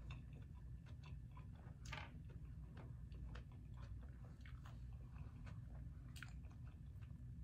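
Faint chewing of a mouthful of food: soft scattered mouth clicks, with a couple of louder ones about two seconds in and again later on.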